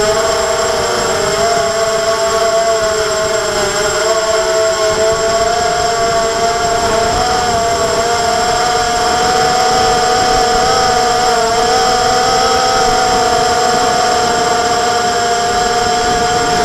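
Hexacopter's six electric motors and propellers whining steadily in flight, two steady tones that drift slightly in pitch, over a low rushing of wind on the onboard microphone.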